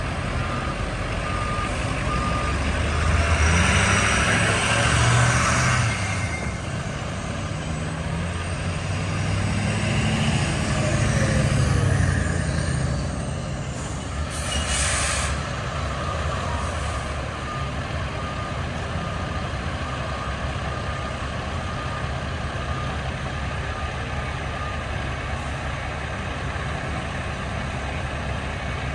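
Fire truck engines running heavily as the trucks pass and back up, with a reversing beeper sounding in a steady series of beeps. A short burst of air-brake hiss comes about fifteen seconds in.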